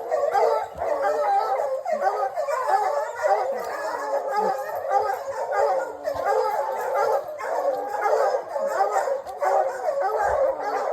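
A pack of hunting hounds baying together, many overlapping voices with no break, as dogs hold a bear bayed up in a hole.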